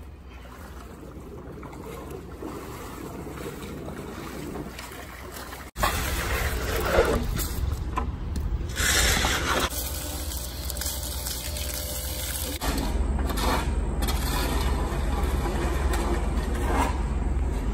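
Wind rumbling on the microphone, with water sloshing and scraping from work in a mucky, half-drained swimming pool. The sound changes abruptly about six seconds in and again about thirteen seconds in, each time getting louder.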